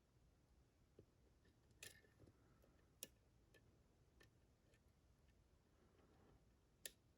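Faint metallic ticks and clicks of a lock pick working the pins of a challenge lock during single-pin picking, with three sharper clicks, the loudest near the end.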